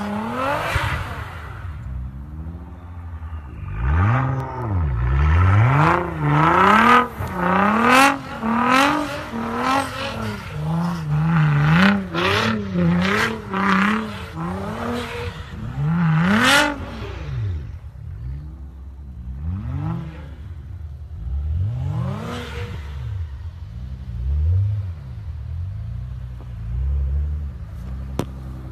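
Nissan GT-R R35's twin-turbo V6 through an Armytrix aftermarket exhaust, revved up and down over and over while drifting in snow. The revs swing quickly and loudly through the middle, then come in slower, quieter swoops near the end, with short sharp hisses at some of the peaks.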